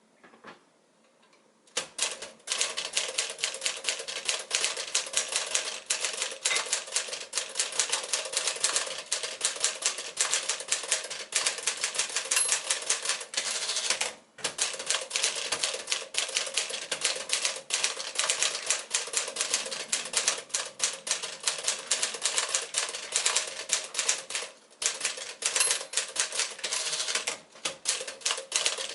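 1951 Smith-Corona Sterling manual portable typewriter being typed on: rapid key strikes clacking, starting about two seconds in, with two brief pauses.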